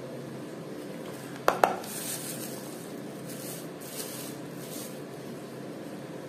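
Two quick clinks of a small metal measuring spoon against a container while spooning out spice powder, followed by a few faint scrapes.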